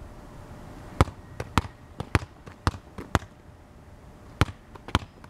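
A string of sharp, short knocks, about two a second, pausing for a second or so and picking up again near the end.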